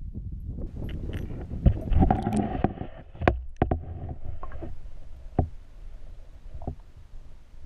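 Water sloshing and splashing against a camera pushed below the surface beside a small boat, heard muffled and gurgling from underwater. Several sharp knocks come through, two near the start and more spread through the middle.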